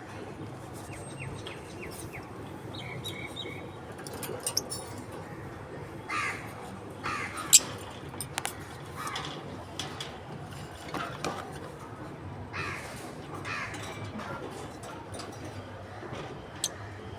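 Pet lovebirds calling: a string of short, harsh screeches, with scattered sharp clicks between them.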